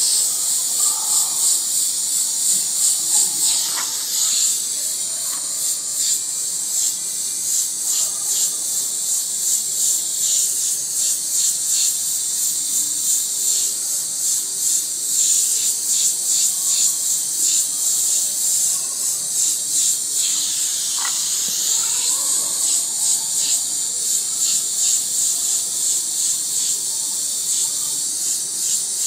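Airbrush spraying paint, a steady high hiss of compressed air that swells and dips over and over as the trigger is worked for each quick dagger stroke.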